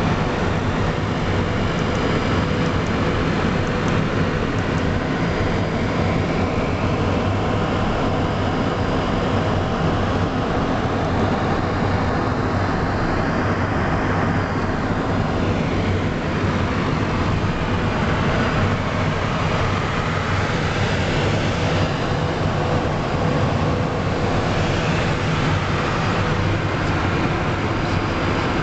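Steady cockpit noise of a Cessna Citation 501 business jet in cruise flight: an even rush of airflow and engine noise from its twin Pratt & Whitney Canada JT15D turbofans, with a few steady hums and a faint high whine running through it.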